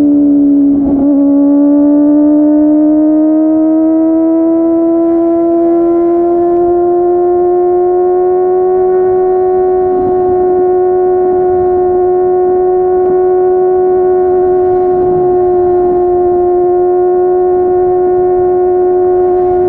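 Kawasaki ZX-25R SE's 249 cc inline-four engine at high revs through a Yoshimura R55 slip-on exhaust, heard while riding. It gives a steady high-pitched wail with a brief dip about a second in; the pitch climbs slowly for the next several seconds, then holds steady.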